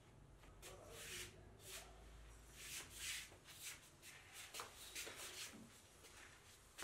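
Quiet rustling and shuffling of clothing and feet on a hard floor as a person moves and kneels down: a string of short brushing sounds.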